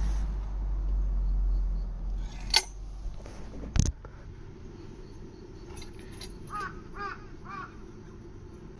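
A low steady rush that stops suddenly at a sharp click a little under four seconds in, an earlier click coming about a second before. Then a crow caws three times in quick succession.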